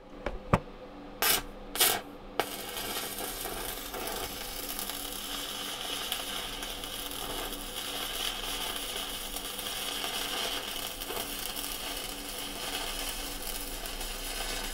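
Stick (MMA) welding arc from an Intensiv WSME 200 inverter welder running a 2 mm electrode at 68 amps: a few sharp pops as the electrode is scratched to strike the arc, which catches about two and a half seconds in, then a steady crackling sizzle as the bead is run.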